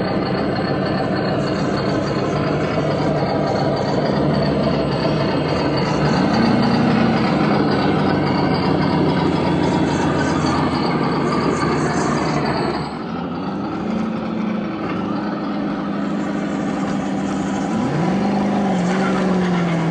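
Electric motors of 1/10-scale RC rock crawlers whining in a shallow river, rising and falling in pitch with the throttle several times, most around the middle and near the end. Under them runs a steady rush of flowing water.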